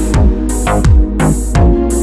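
Electronic dance music with a heavy beat: deep bass notes that slide down in pitch and sharp, bright percussion hits at an even, rhythmic pace.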